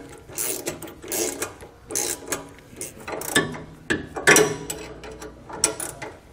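Two wrenches snugging up the nylon lock nuts on a sway bar end link bolt: a run of irregular metallic ratcheting clicks, several a second.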